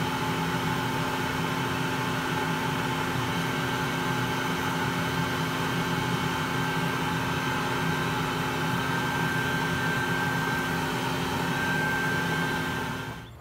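Bee vacuum running steadily as its corrugated hose sucks honey bees off the comb, a constant motor drone with a steady whine. It cuts off sharply near the end.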